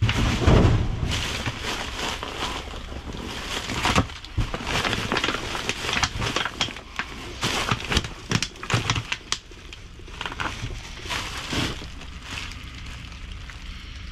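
Plastic bags and food packaging crinkling and rustling under gloved hands rummaging through dumpster waste, in irregular bursts with sharp crackles. It quietens about ten seconds in.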